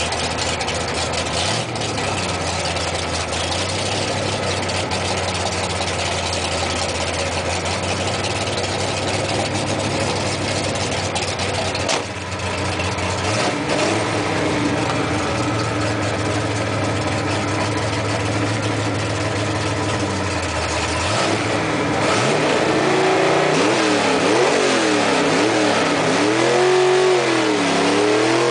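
A 4x4's engine heard from inside the cab while driving, running at steady low revs with a short break about twelve seconds in. Over the last third it revs up and down repeatedly and gets louder.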